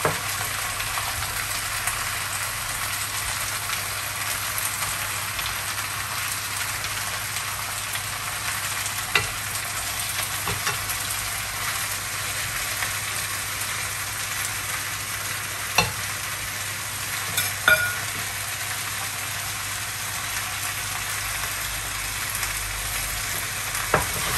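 Pork liver slices frying in fat in a pan, over apples and onions, with a steady sizzle. A few sharp clicks come through now and then.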